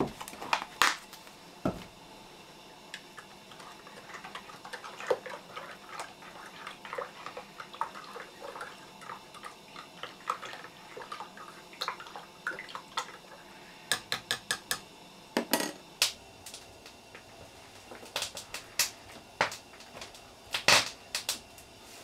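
Spoon stirring coffee in a mug, with many light clinks against the sides and a quick run of about six taps a little past halfway. A few clicks from the creamer container's lid come at the start and a few louder knocks near the end.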